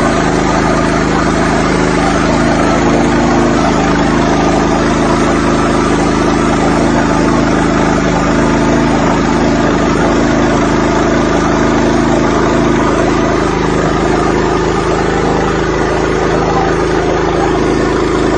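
Pressure washer running steadily: a loud, even motor-and-pump hum with a spray hiss over it.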